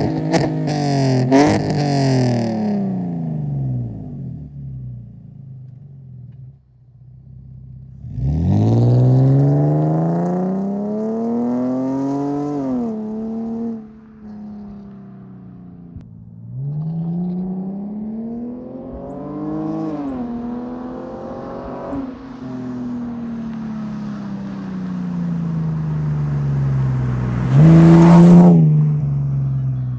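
BMW E46 exhaust, with catless headers and a custom 4-inch single-exit Greddy muffler, under hard acceleration. The revs fall off, climb in two pulls broken by gear changes, then die away. A brief, very loud blast comes near the end.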